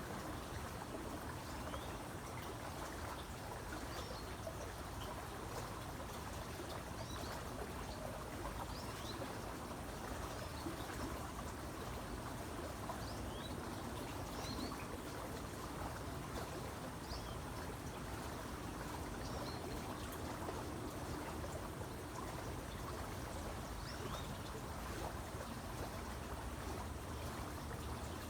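Small creek running over stones with a steady babble, and birds giving many short, high chirps throughout.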